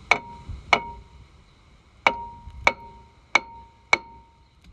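A hammer striking a steel brake rotor six times, roughly in pairs, each blow leaving a short metallic ring. It is knocking a rotor that has rusted onto the hub to break it loose.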